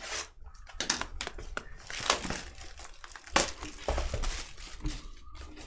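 Foil wrapper of a 2023 Topps Chrome baseball card pack being torn open and crinkled: an irregular run of crackles with a few sharper rips.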